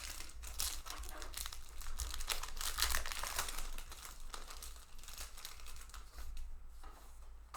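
Foil wrapper of a Magic: The Gathering booster pack crinkling and tearing as it is ripped open, a dense crackle that is busiest in the first few seconds and thins out toward the end.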